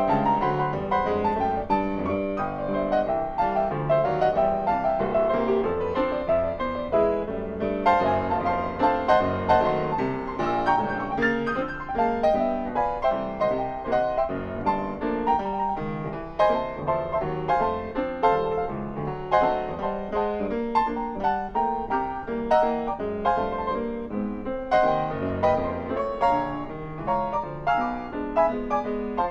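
Solo grand piano played in a fast, busy passage of many quick notes without a break.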